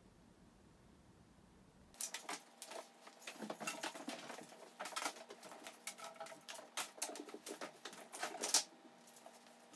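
Near silence, then from about two seconds in a busy, irregular run of quick taps, scuffs and rustles: cats chasing a wand toy across a wooden floor.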